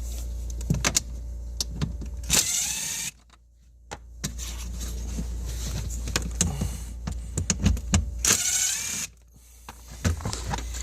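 A small cordless power tool with a 7mm socket spinning out the lower dash pad bolts: two short bursts of motor whine, about two seconds in and again near the end, each cutting off suddenly, with clicks and knocks of the socket and bolts in between.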